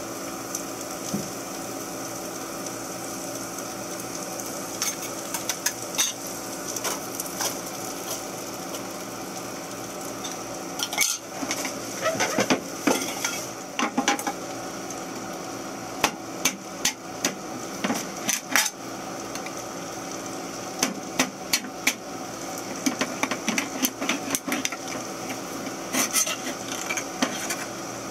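Galley cooking: onions frying in a pan over a steady hum, with many scattered clinks and knocks of a knife, metal can and utensils, busiest from the middle of the stretch on.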